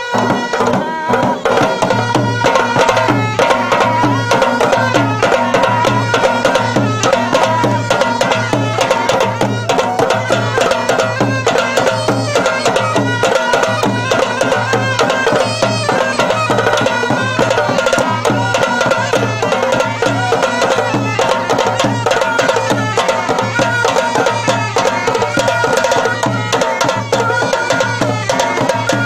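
Live Gilgit-Baltistan folk dance music: fast, driving drumming under a held melody line, running continuously.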